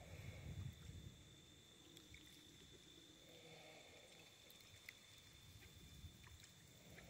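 Near silence: faint outdoor ambience, with a brief low rumble in the first second and a faint steady high tone.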